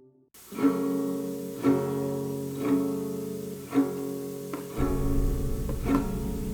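Music: a guitar-like plucked-string chord struck about once a second, after a brief silence at the start; a deep bass comes in a little under five seconds in.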